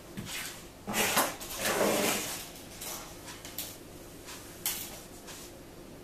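Handling noises from hands working on a hairstyle: two scraping, rustling bursts about one and two seconds in, then a few light clicks.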